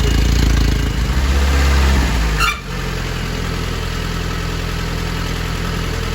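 Restored Jeep engine running at idle, freshly started after a long spell of cranking and choking. It breaks off abruptly about two and a half seconds in and then carries on a little quieter and steadier.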